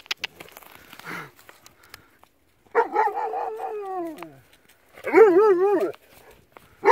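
A dog giving two drawn-out whining howls: the first, about three seconds in, slides down in pitch; the second, louder, about five seconds in, wavers up and down.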